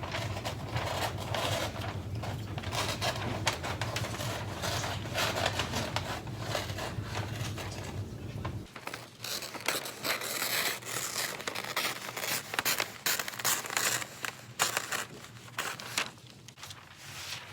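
Wrapping paper crinkling and rustling as it is folded around a gift, in a dense run of small crackles and scrapes. A low hum under the first half stops about halfway through.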